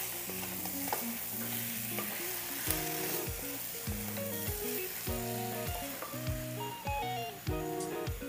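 Spiced potato cubes sizzling in oil in a kadai as a wooden spatula stirs and turns them, with background music playing over it.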